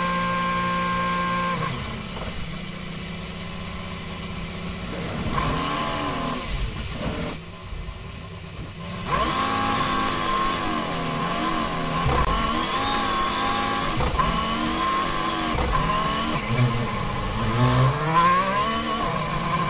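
Turbo V6 Formula 1 engine of a 2021 Alfa Romeo, heard from the onboard microphone. It runs steadily at first, then, stopped in the pit box, its revs surge and drop again and again as the anti-stall kicks in. Near the end the revs rise as the car pulls away.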